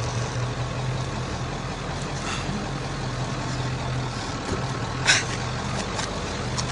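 A vehicle engine idling steadily with a low hum, and a short breathy burst about five seconds in.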